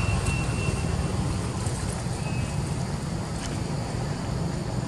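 Steady low outdoor rumble, with two faint short high peeps, one near the start and one about two seconds in.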